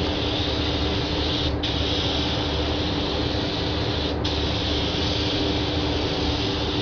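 Compressed-air paint spray gun hissing steadily as paint is sprayed onto a car body, breaking off briefly twice, over a steady low hum.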